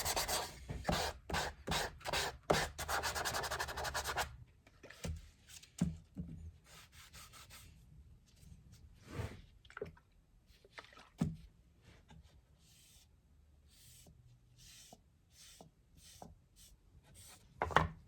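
Hand rubbing on the wooden box: a quick run of rapid back-and-forth strokes for about four seconds, then slower, softer separate strokes and swishes.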